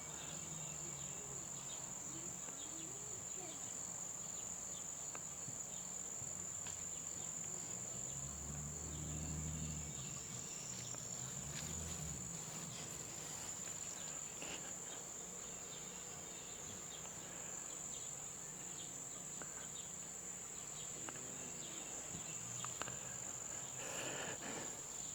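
Steady high-pitched chorus of insects, an unbroken shrill buzz.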